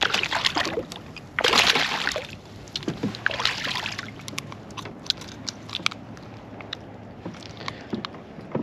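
A hooked bluefish thrashing at the surface beside a canoe, with three loud splashes in the first four seconds. It is followed by a run of sharp clicks and taps as the fish is handled on the lure.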